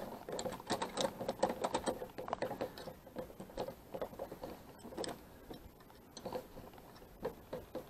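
Just-repaired door lock clicking as its lever handle is worked, the latch moving in and out: a run of quick clicks that thins out after about three seconds.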